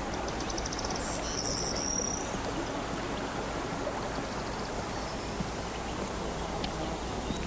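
Steady rushing hiss of outdoor ambience. About a second in comes a brief high trill of quick ticks ending in a short chirp.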